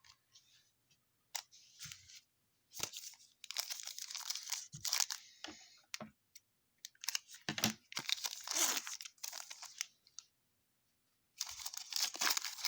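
Foil trading-card pack wrapper being torn open and crinkled, in several bursts of tearing and crackling with a short pause near the end.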